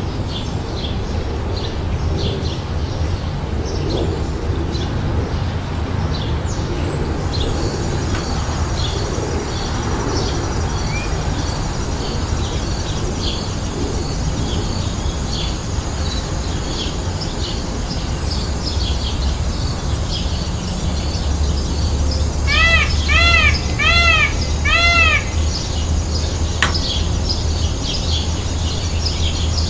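Small birds chirping steadily over a low, constant rumble. About three-quarters of the way through, a peafowl gives four quick, loud, arching calls in a row.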